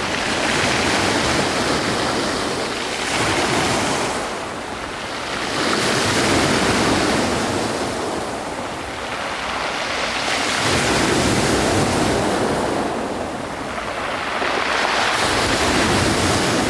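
Sea surf: waves washing in and drawing back, the rush swelling and fading every few seconds.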